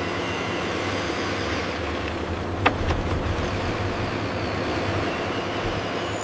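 Steady engine rumble of construction machinery running, with a single sharp click about two and a half seconds in.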